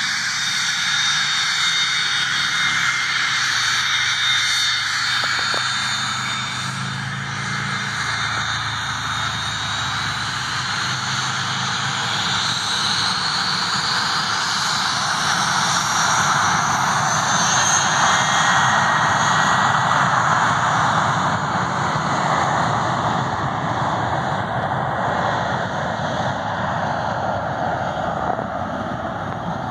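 Small business jet's twin rear-mounted turbofan engines running at taxi power as it rolls past: a continuous rushing noise with a high whine that rises in pitch around the middle, loudest a little past two-thirds of the way in.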